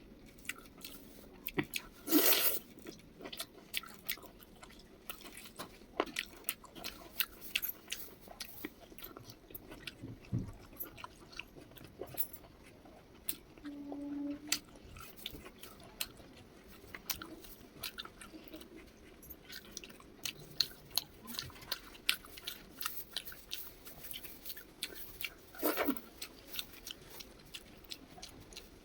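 Close-up eating sounds: a person chewing and biting mouthfuls of a spicy chicken liver and rice meal, with many small wet mouth clicks and two louder smacks, about two seconds in and near the end.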